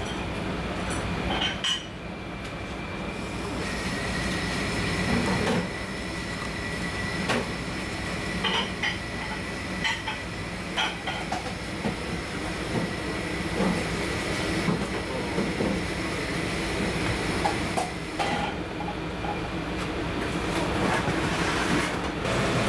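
A knife working a whole marbled rockfish on a plastic cutting board, giving scattered short clicks and knocks, over a steady kitchen hum that carries a thin high whine through most of the middle.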